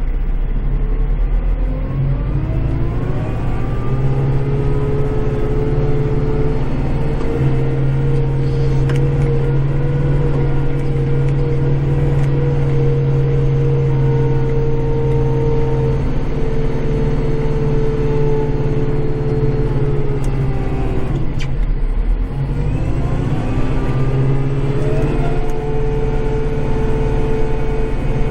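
Kubota compact tractor's diesel engine heard from inside the cab, working steadily at high revs. Its pitch climbs over the first few seconds and holds, then drops sharply about three-quarters of the way through and climbs back up.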